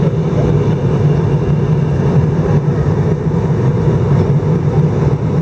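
Steady, low cabin drone of an Airbus A319 airliner in flight: engine and airflow noise heard from inside the passenger cabin.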